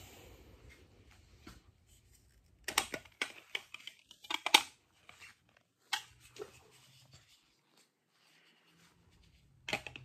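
Plastic toy lightsaber parts being handled and fitted together: scattered clicks and knocks, a cluster of sharp ones about three to five seconds in, another about six seconds in and more near the end, with light rustling between.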